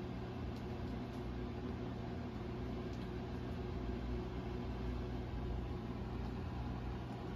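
Steady low hum and hiss from a record playback with the music stopped: the stylus rides the end of the side near the label.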